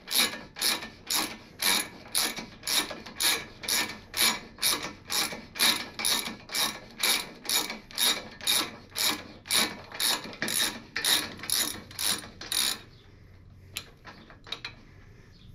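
3/8-inch drive ratchet clicking in quick back-and-forth strokes, about two or three a second, as it spins a motorcycle front axle out of its threads. The clicking stops about 13 seconds in, leaving a few faint ticks.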